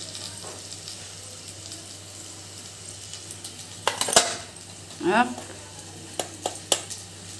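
Raw papaya pieces frying in mustard oil in a pot, a steady low sizzle. Sharp metal clinks come a little before halfway and again several times near the end.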